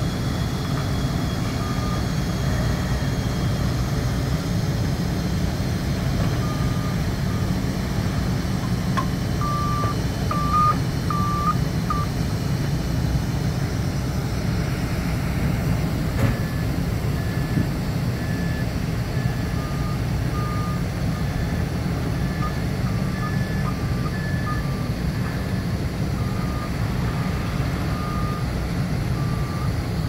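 Heavy machinery running steadily: the diesel engines of a Nippon Sharyo DH608-120M pile driving rig and an excavator. Over the engines come intermittent electronic warning beeps at two pitches, a lower beep on and off throughout and a higher one repeating about once a second through the middle stretch.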